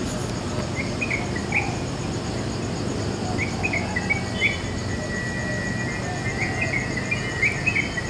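Yellow-vented bulbuls (trucukan) calling in short chirping phrases, in three brief bursts: about a second in, around the middle, and near the end. A steady insect drone runs underneath.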